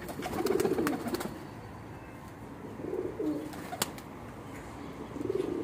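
Domestic pigeons cooing in a loft: three spells of low coos, with a few sharp clicks, the clearest a little before four seconds in.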